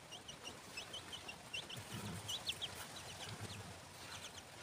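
Chicks cheeping: short, high, falling peeps, several a second, in irregular runs.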